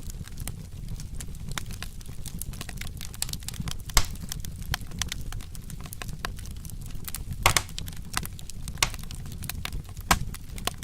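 Wood fire crackling and popping irregularly over a low rumble, with sharper pops about four and seven and a half seconds in.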